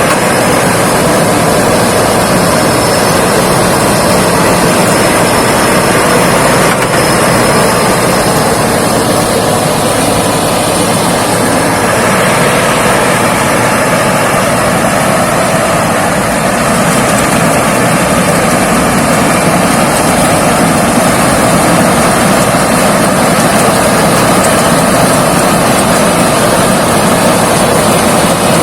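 Thai Seng 'Chao Phayu' rice combine harvester running steadily while harvesting rice.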